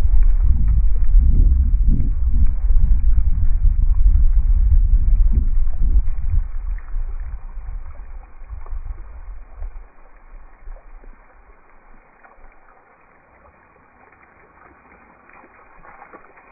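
Slowed-down sound of the bullet hitting the ballistics gel and water splashing: a deep, drawn-out rumble with gurgling, loud for about six seconds, then fading to faint by about ten seconds in.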